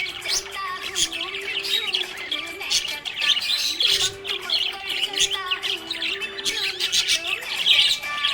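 Budgerigars chirping and chattering continuously in quick, high warbles and squawks, with a song's melody playing steadily underneath.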